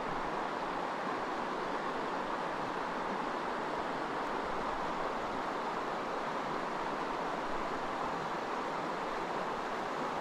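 Steady rush of river water flowing over rocky shoals, an even, unbroken hiss.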